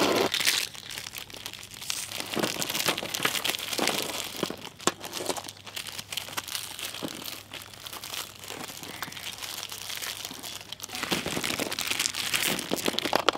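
Plastic Oreo biscuit wrappers crinkling as packets are handled and emptied onto a pile of biscuits, with scattered sharp clicks of biscuits dropping onto the heap. The crinkling grows louder near the end.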